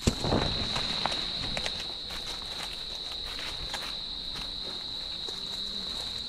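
Footsteps crunching and brushing through long grass and dry leaf litter, loudest in the first second, with an insect's steady high-pitched drone throughout.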